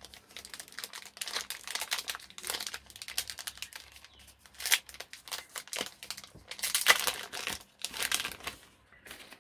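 Clear plastic packaging bag crinkling and rustling in quick crackles as an action camera is unwrapped from it by hand, with louder bursts about halfway through and again later on.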